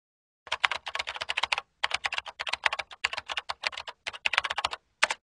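Typing sound effect: rapid keystroke clicks, about eight to ten a second, in several quick runs broken by brief pauses. It accompanies text being typed out on screen.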